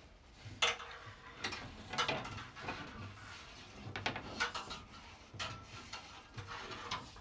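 Non-metallic sheathed electrical cable being fed through a ceiling hole and pulled down inside the wall: irregular short scrapes, rustles and clicks as the cable rubs against the drywall edge and the framing.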